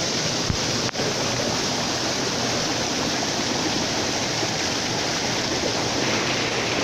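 Waterfall pouring into a rocky gorge: a steady, loud rush of falling water, with a brief dropout about a second in.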